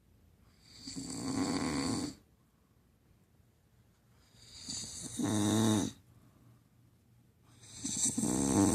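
Snoring: three snores roughly three and a half seconds apart, each building up and loudest toward its end, with quiet breathing gaps between.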